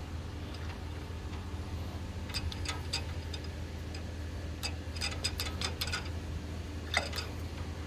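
Scattered light metallic clicks and ticks in small clusters from handling a hydraulic flaring tool on stainless steel fuel line, over a steady low hum.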